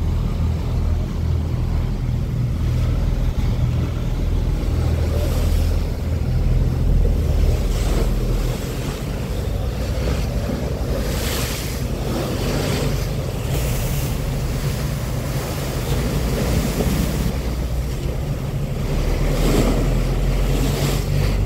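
A pilot boat's engine runs steadily under churning water and spray squeezed between its hull and a tanker's side. The water surges into loud splashes several times, and wind buffets the microphone.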